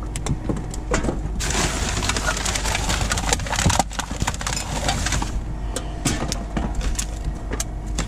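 Rubbish being rummaged through by hand in a large bin: plastic bags, paper and bottles rustling, knocking and clinking, over a steady low rumble, with a louder stretch of rushing noise from about one and a half to five seconds in.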